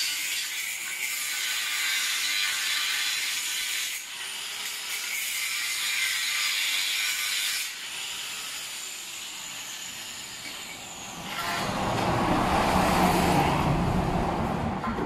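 Angle grinder cutting through a steel bar, a steady high-pitched grinding that dips briefly about four seconds in and stops about seven and a half seconds in. From about eleven seconds a louder, lower-pitched noise takes over.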